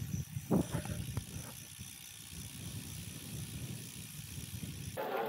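Wind buffeting a bike-mounted camera's microphone over the rolling noise of a road bike riding along, with a few short clicks about half a second to a second and a half in.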